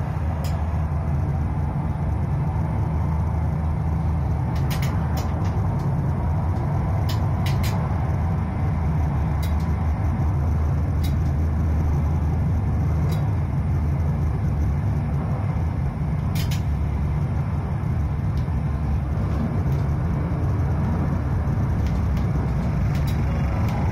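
Tram running along its track, heard from the driver's cab: a steady low rumble with a low hum, and sharp clicks every few seconds.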